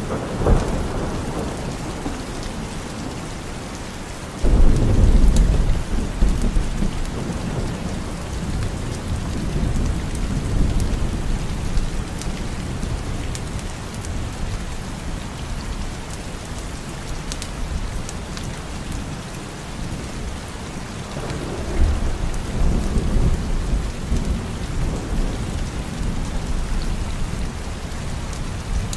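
Steady rain falling, with thunder rolling over it: a rumble right at the start, a louder clap that breaks in suddenly about four seconds in and rolls on for several seconds, and another rumble a little over twenty seconds in.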